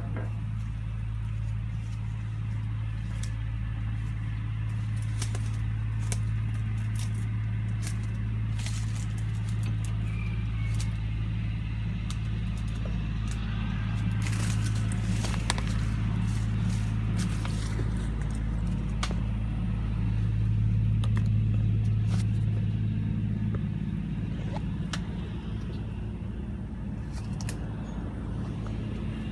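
An engine running steadily at a low, even pitch. It grows a little louder twice, with scattered light clicks and rustles over it.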